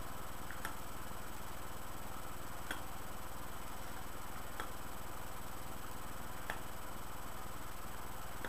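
Steady microphone hiss and hum, with a faint sharp click about every two seconds.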